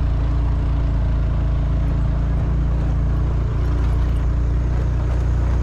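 A motor vehicle's engine running steadily, a constant low drone with no change in pitch.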